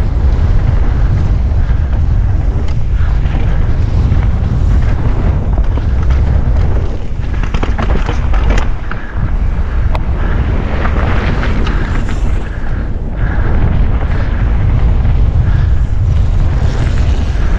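Mountain bike descending a rough enduro trail: wind buffeting the action camera's microphone over a steady low rumble of tyres and frame, with a few sharp knocks and rattles from bumps.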